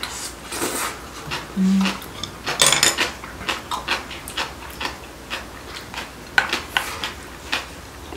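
Chopsticks and spoons clicking and clinking against bowls and plates during a meal, a dozen or so sharp irregular clicks, with a short low hum about one and a half seconds in.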